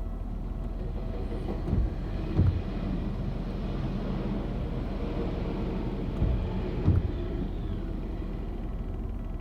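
Tokyu Line electric train running through a level crossing: a steady low rumble with paired wheel knocks over the rail joints, two knocks about half a second apart, twice.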